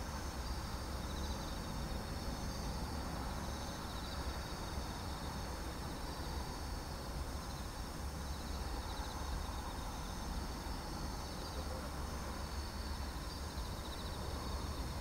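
Insects chirping steadily in fine, pulsing high-pitched bands, over a constant low rumble.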